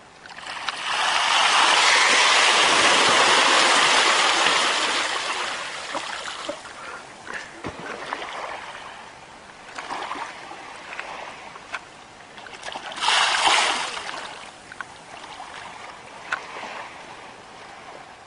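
Water splashing and churning at the surface as a fish school scatters from attacking blacktip reef sharks. The splashing is loudest in the first few seconds, dies down, and comes again in a short burst about 13 seconds in.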